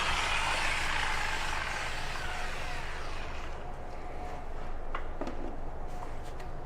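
A handheld rotary glass-grinding tool spinning down after being switched off, its pitch falling over about two seconds, then a low steady hum with a few light clicks.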